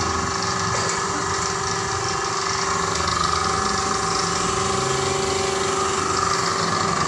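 A machine running steadily with a constant whine, unchanging in pitch and level.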